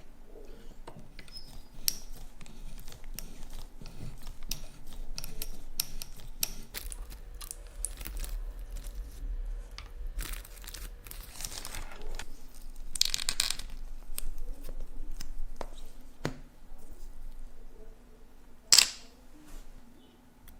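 Small clicks, taps and scrapes of watchmaker's tools and small metal watch parts being handled at the bench, with some rustling. A single sharp click near the end is the loudest sound.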